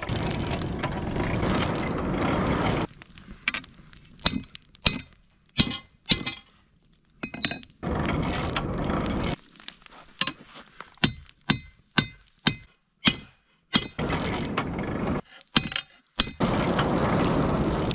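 Lumps of charcoal clinking and cracking in a charcoal forge, many sharp separate clicks. Between the clicks come four stretches of steady rushing noise, the longest in the first three seconds.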